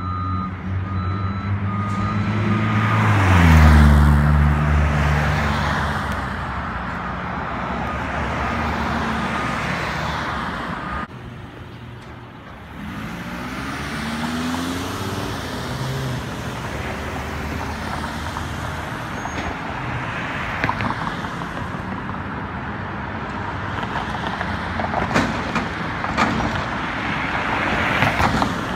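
Front-loader garbage truck's diesel engine revving and idling, with the loudest rev about three seconds in and a backup alarm beeping through the first part. Near the end the hydraulic forks lift a dumpster over the cab as the engine revs, with several sharp metal clanks as the bin is emptied.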